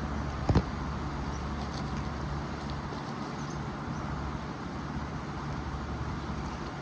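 Steady low background rumble, with one sharp knock, a quick double hit, about half a second in.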